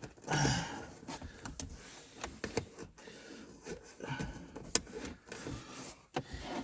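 Irregular scraping and rustling with scattered sharp clicks, as a power cable is pushed in behind a car's interior trim and rubber door seal.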